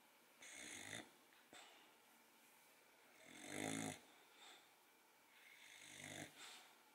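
Boxer puppy snoring in its sleep: three snores about two and a half seconds apart, each swelling in loudness, the middle one the loudest, each followed by a short softer puff.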